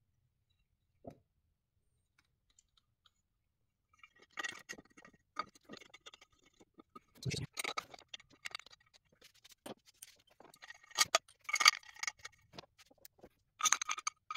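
Irregular light metallic clicks, clinks and taps of the oil filter housing and its bolts being handled and fitted by hand on an M272 Mercedes V6 engine. They begin about four seconds in, after a single soft knock.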